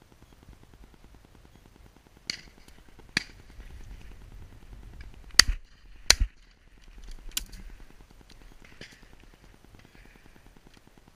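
Double-barrelled shotgun fired twice in quick succession, less than a second apart, both barrels missing the bird. Fainter sharp cracks come a few seconds before and after.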